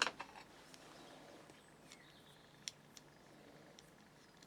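A few faint, sharp clicks and taps over quiet room tone: crossbow bolts and their metal tips being handled and set down. The loudest click comes right at the start and a clear one near three seconds in.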